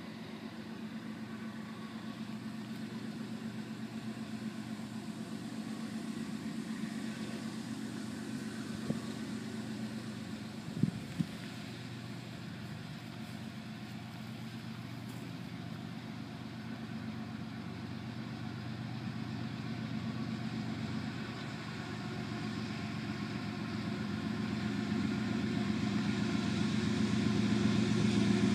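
Diesel engine of an approaching CSX GE Dash 9 freight locomotive, a steady low hum that grows steadily louder as the train draws near. A few brief knocks sound around the middle.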